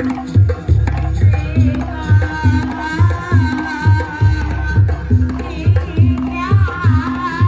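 Javanese gamelan-style music: hand drums beating a steady rhythm of about three beats a second under a held metallic tone, with a wavering high melody entering about two seconds in.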